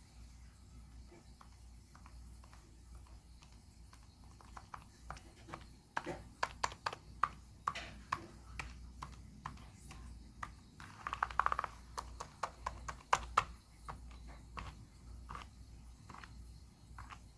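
Keyboard keys being pressed and clicked in an irregular pattern, sparse at first, then faster and louder in the middle, with a quick rattling run of clicks about eleven seconds in.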